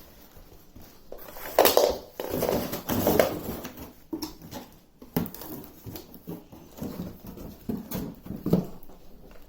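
Irregular rustling and knocking as a newly unboxed vacuum cleaner is unpacked, its packaging and plastic parts handled, with louder bursts now and then.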